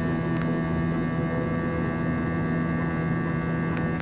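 Airliner cabin in flight: steady drone of jet engines and rushing air, with several steady humming tones running through it.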